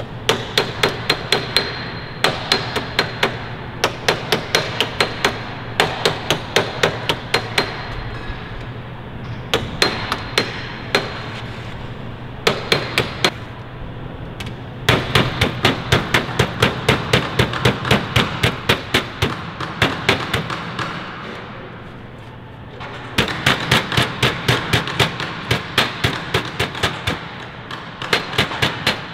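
A mallet rapidly tapping the edge of a metal aircraft fin skin panel against a hand-held dolly, shaping the skin by hand. The taps come in quick runs of about five strikes a second, with a few short pauses.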